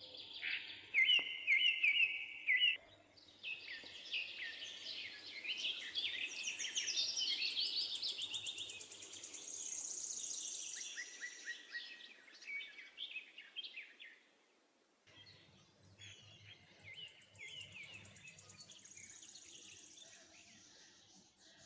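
Birds chirping and singing, a dense run of short, quick high calls and trills. The chirping stops briefly about fourteen seconds in and then starts again.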